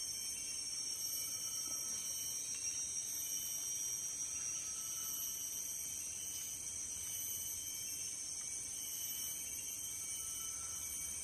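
Steady, high-pitched insect chorus droning without a break, with a few faint brief tones underneath.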